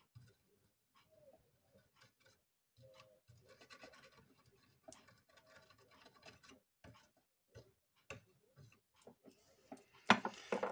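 Faint scratching and small clicks of a hand working an 18650 battery pack among metal scraps in a tin dish, with a louder rattle near the end as the pack is lifted out.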